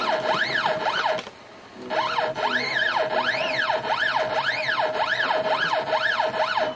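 Stepper motor jogging the Y axis in short repeated moves. Its whine sweeps up and falls back about twice a second over a steady lower tone as each move speeds up and slows down. It pauses briefly about a second in.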